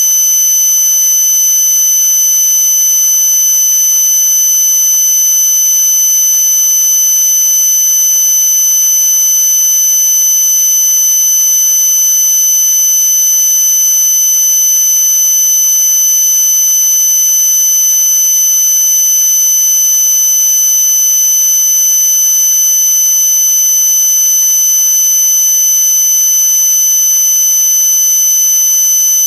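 Loud, unchanging high-pitched buzzing tone over a steady hiss, like an electronic buzzer; no engine sound is heard.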